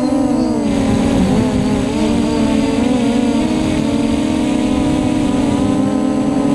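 Brushless motors and propellers of a scratch-built F330 quadcopter, heard up close from a camera on its frame: a steady buzzing whine whose pitch wavers up and down as the throttle changes in fast flight.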